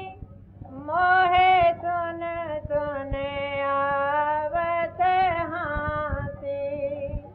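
A woman singing a Hindi devotional bhajan, drawing out long held notes that bend and slide between syllables.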